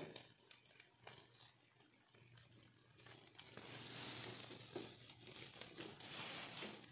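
Faint sizzling and crackling of fish cooking in a wire grill basket over charcoal as oil is brushed on, growing louder from about three seconds in.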